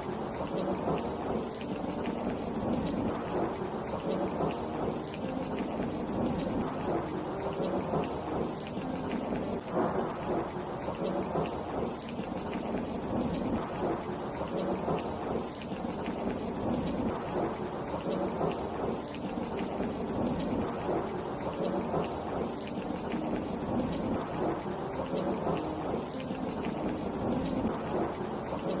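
Steady heavy rain, a dense, unbroken patter of drops.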